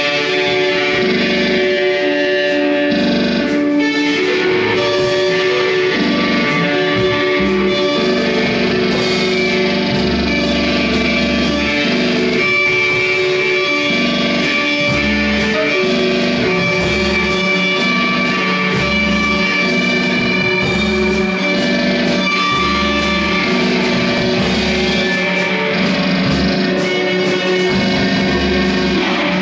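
Live improvised noise music from electric guitars run through effects pedals and electronics: loud, continuous layers of sustained droning tones over low notes that change every second or two.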